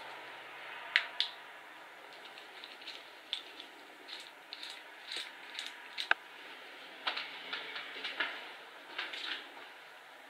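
Footsteps in a stairwell: a dozen or so short, irregularly spaced scuffs and crunches underfoot, over a faint steady hiss.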